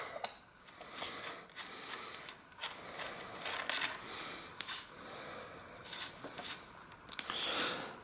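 Adjustable cup of a cup-and-cone bicycle bottom bracket being unscrewed by hand from the frame's shell: quiet metal rubbing and scraping of the threads, with a few small metallic clinks about halfway through as the cup and its loose ball bearings come free.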